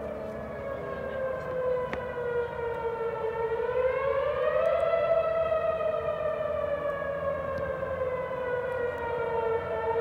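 Whelen electronic outdoor warning siren sounding its wail tone for a tornado warning. Its pitch dips slightly, rises to a peak about five seconds in, then falls slowly again.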